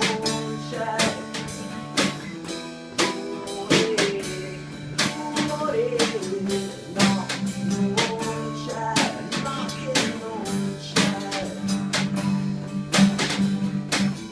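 A band playing a song live, with guitar and a drum kit keeping a steady beat.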